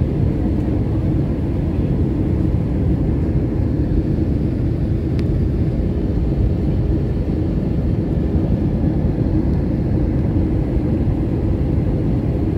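Steady low rumble of an Airbus A320's engines and airflow heard from inside the passenger cabin on approach.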